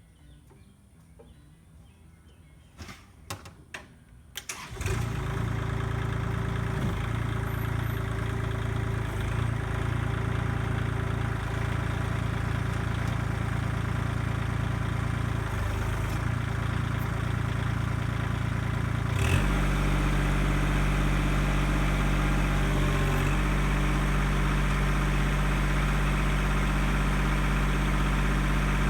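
A Kubota L2501 tractor's three-cylinder diesel engine starting after a few clicks, catching about five seconds in and then running steadily. About 19 seconds in its note shifts deeper and slightly louder.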